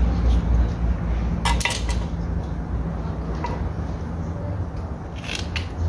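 A knife clinking and scraping against a concrete block while a garrobo carcass is cut up. There are a few sharp clinks about a second and a half in and again near the end, over a steady low hum.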